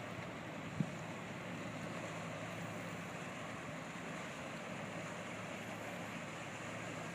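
Cygnus DS 25 creel boat's engine running with a steady low hum under wind and rushing water; a single knock about a second in.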